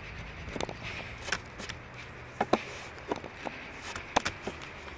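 Steel wood chisel pushed by hand, cutting a hinge mortise into the edge of a wooden board: a series of irregular sharp clicks and snaps as the wood fibres and chips split off.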